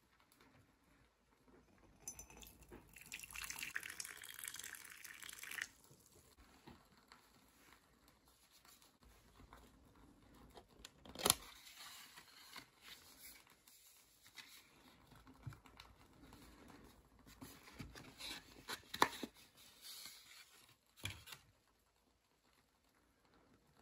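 Water poured from a Tefal Mini Control electric kettle into a mug, a faint splashing hiss lasting about three seconds. Later a cardboard pastry box is opened and handled: a sharp tap about halfway through, then soft paper and card rustles and knocks near the end.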